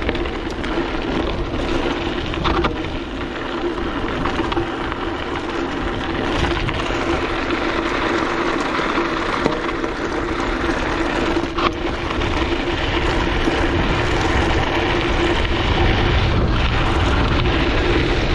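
Mountain bike being ridden along a dirt track: wind rushing over the camera microphone and tyres rolling, with a few sharp knocks, growing a little louder in the second half.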